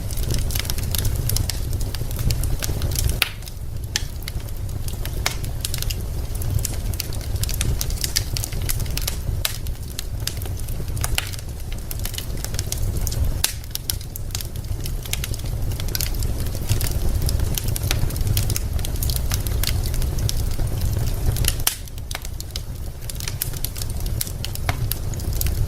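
Wood fire burning in a fireplace: logs crackling with many sharp, irregular pops over a steady low rumble.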